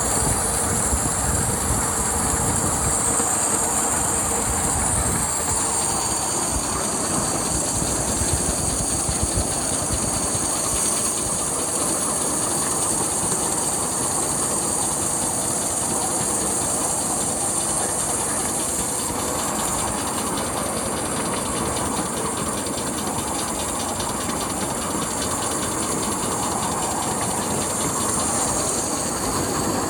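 7¼-inch gauge Quarry Hunslet live-steam locomotive running and working up a gradient, heard from the footplate: exhaust beats and wheels clattering over the rail joints. A steady hiss of steam runs underneath, with the left-hand cylinder drain cock leaking slightly.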